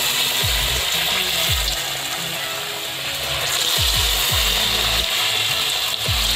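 Batter-dipped potato pakoras frying in hot oil in a kadhai: a steady sizzling and crackling of the bubbling oil, with background music underneath.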